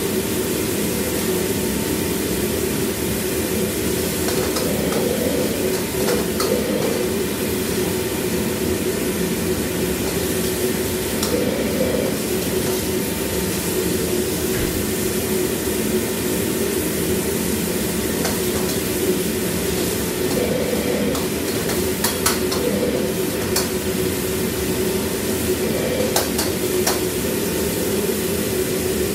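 Stir-frying in a wok on a commercial wok range: food sizzling over a steady roar and hum, with a metal ladle knocking and scraping against the wok every few seconds.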